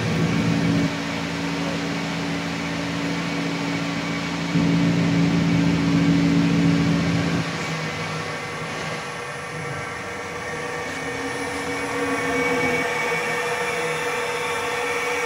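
Vertical CNC mill spindle running steadily at about 2,000 RPM, a smooth machine whine made of several steady tones. A deeper drone joins in for about the first second and again for about three seconds in the middle.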